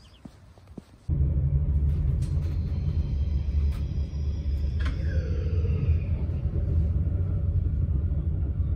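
Steady low rumble of a moving vehicle heard from inside, starting abruptly about a second in, with a few faint high squeaks and clicks over it.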